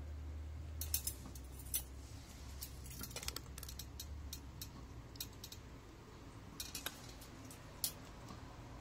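A scattering of sharp clicks and light taps at irregular intervals, over a low hum that fades out about halfway through.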